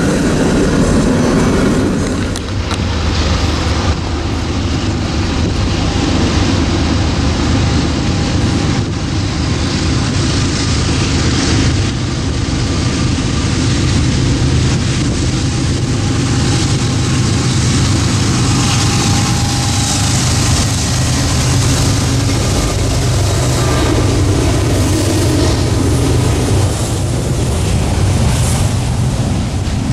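Norfolk Southern diesel-electric freight locomotive with its engine running, a steady low rumble under a noisy hiss. In the first couple of seconds, loaded coal hopper cars roll past with wheel noise on the rails.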